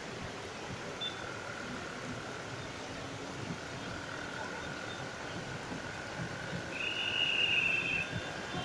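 Heavy rain falling steadily, an even hiss, with a faint steady high tone running through most of it and a louder high-pitched tone lasting about a second near the end.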